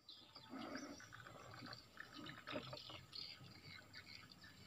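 Faint lapping and trickling of river water against a wooden boat, with small irregular ticks.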